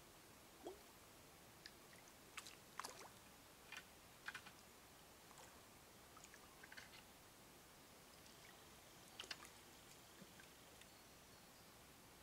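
Near silence with faint hiss, broken by a dozen or so faint, short clicks and ticks scattered unevenly through.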